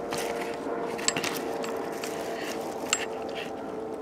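Handling noise as the camera is bumped and swung: rustling with two sharp clicks, over a faint steady hum.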